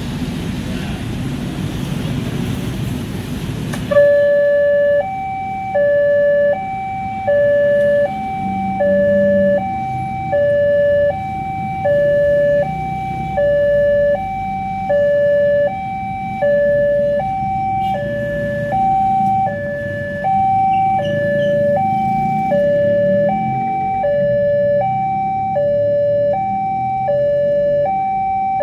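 Loud, even rumbling noise for about four seconds, which stops abruptly. Then an Indonesian level-crossing warning alarm starts from the horn loudspeaker on the signal post: two electronic tones alternating high and low, each held a little over half a second, repeating steadily as the warning that a train is approaching.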